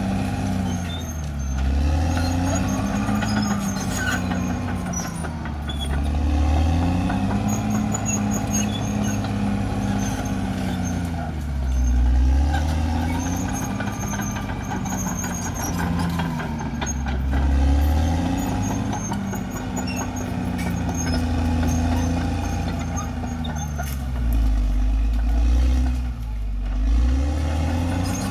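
Cat D6R XL bulldozer's diesel engine working under load, its pitch repeatedly sagging and climbing back every few seconds as the blade pushes, with track clatter and faint high squeaks.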